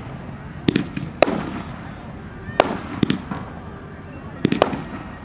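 Aerial fireworks exploding: about six sharp bangs, mostly in pairs half a second or less apart, each followed by a rolling echo.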